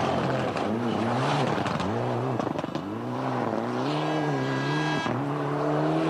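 Mitsubishi Lancer Evolution rally car's turbocharged four-cylinder engine revving hard at speed, its pitch repeatedly rising and dipping with throttle lifts and gear changes through a corner, with a few sharp cracks in the first half.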